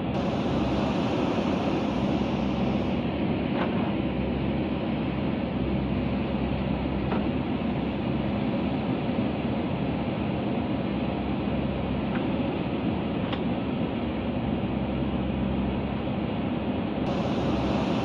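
JCB backhoe loader's diesel engine running steadily as the backhoe arm digs into the hillside, with a few faint knocks.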